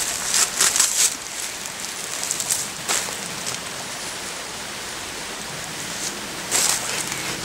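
Short rustling, hissing bursts: grass handled near the start, then a bee smoker's bellows puffing smoke about six and a half seconds in.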